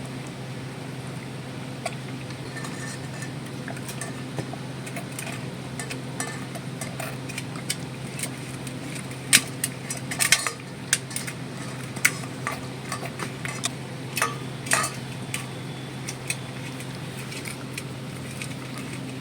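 Cow munching its feed: irregular crisp crunches and clicks that come thickest and loudest in the middle, over a steady low hum.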